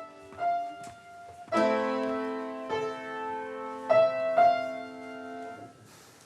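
Piano playing a slow phrase: single notes, then a loud full chord a little over a second in, each left to ring and fade before the next, dying away near the end.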